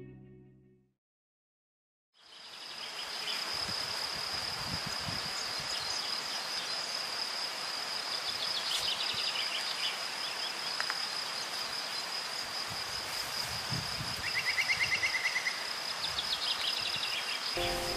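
Background music fades out, and after about a second of silence a steady high-pitched insect trill sets in. A few short, rapid bird trills sound over it, the loudest about fourteen seconds in.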